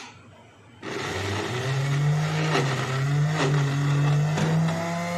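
Electric food chopper switched on about a second in, its motor spinning up and then running steadily as it grinds boiled dal and minced meat. A few sharp knocks sound as the food is thrown against the jar.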